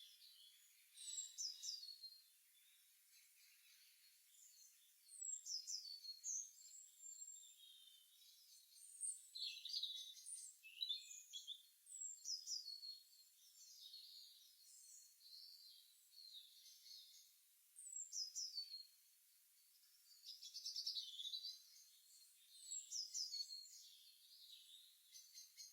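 Songbirds chirping faintly in the early morning: short high-pitched phrases of quick falling notes every second or two, with a soft hiss between them.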